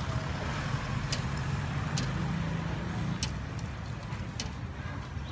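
Sliced pork grilling on a wire grill over charcoal: a handful of sharp crackles and clicks about a second apart, over a steady low rumble.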